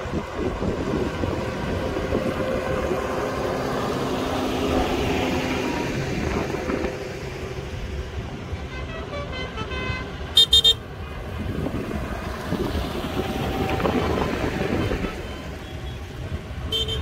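Tractor engines running as a line of tractors drives past, the sound swelling and fading as each one goes by. A horn gives three quick toots about ten seconds in, the loudest sound here, and another short toot near the end.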